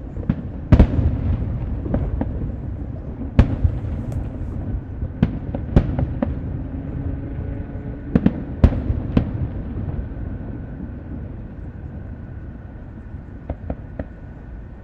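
Fireworks display: irregular sharp bangs over a continuous low rumble. The loudest come about a second in, a little after three seconds and near nine seconds, then the shots thin out and grow quieter, with a few small crackles near the end.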